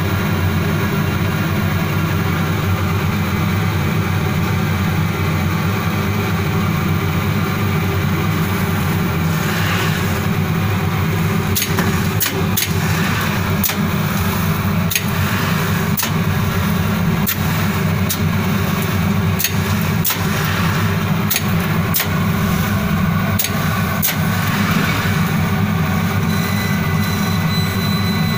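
Automatic laser cutting machine for corrugated cardboard running, with a steady low hum throughout. Through the middle stretch there is a series of sharp clicks and a few brief swells of rushing noise, and a faint high whine comes in near the end.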